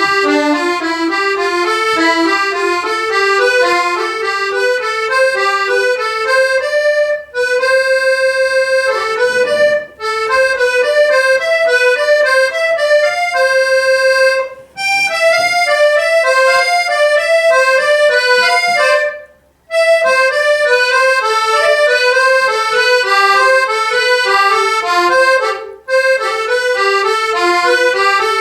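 Accordion right-hand finger exercise played legato: quick connected runs of notes going up and down, broken by short pauses between phrases about five times, with one longer held note part way through.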